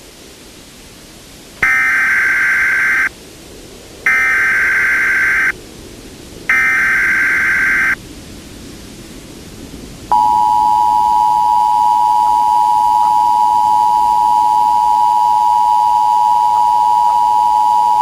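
Emergency Alert System tones over a faint hiss. First come three burst-like SAME header data bursts, each about a second and a half long. Then, about ten seconds in, the steady two-tone EAS attention signal starts and holds, marking the start of an emergency alert broadcast.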